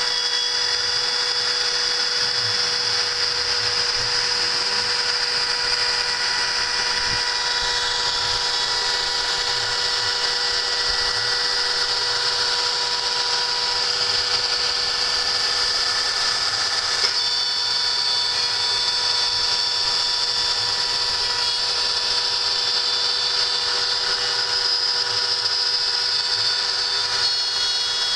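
A homemade CNC machine's high-speed spindle running steadily with a high whine over a hiss of cutting noise. Its pitch shifts a little about two-thirds of the way through.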